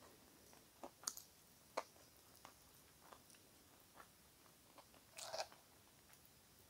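Faint close-up chewing: soft wet mouth clicks and smacks as food is chewed, with a brief louder noisy sound about five seconds in.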